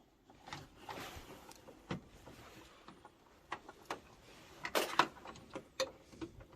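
Scattered clicks, knocks and rustles of boiler parts and tools being handled by hand, with a louder clatter about five seconds in.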